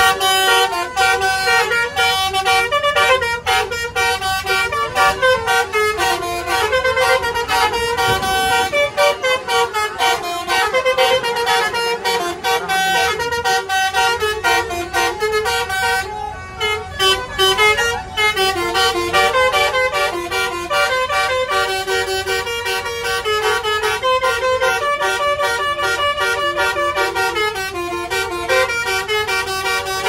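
Indonesian bus 'telolet' multi-tone horns playing rapid stepped tunes almost without pause, with a short drop about sixteen seconds in.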